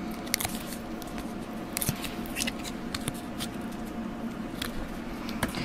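Hands handling paper card pieces and a paper flower on a tabletop: scattered light clicks, taps and rustles of paper, over a faint steady hum.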